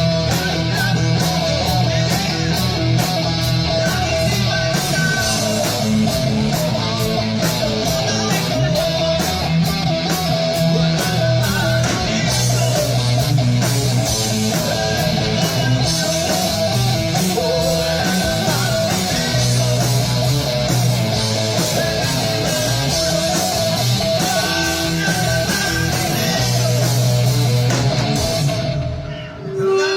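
Rock band playing live, guitar-driven with a steady beat. The music drops out briefly just before the end, then comes back in.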